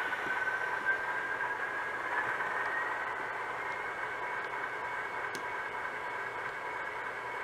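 Model diesel switcher locomotive running slowly with a short train of freight cars: a steady motor-and-gear whine over a hiss, its pitch creeping slightly upward.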